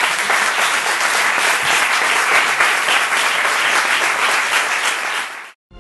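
Audience applauding, a dense patter of many hands clapping at the close of a talk, cut off abruptly near the end.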